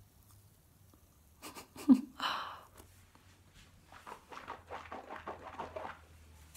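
Toothbrush bristles scrubbing baking soda paste along the teeth and gums in a run of quick scratchy strokes, with one short sharp noise about two seconds in.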